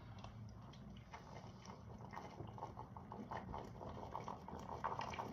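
Faint gulping and small mouth clicks of someone chugging soda, irregular and growing busier near the end.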